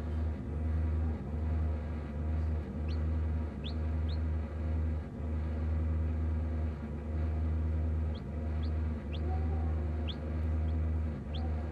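Newly hatched chicks peeping in an incubator: about nine short, high peeps in two clusters, over a steady low hum.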